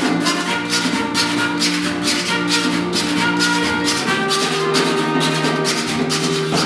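Live Bahamian rake 'n scrape music: a scraped saw keeps a steady scratching rhythm under sustained held melody notes, with a change of chord about four seconds in.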